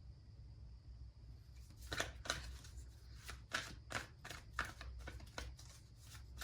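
A deck of tarot cards being shuffled by hand: after a quiet start, a run of sharp, irregular card snaps, two or three a second, begins about two seconds in.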